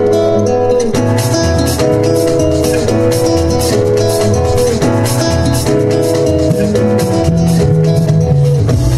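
Dance music from the DJ over loudspeakers: a steady beat under a moving bass line and a melody.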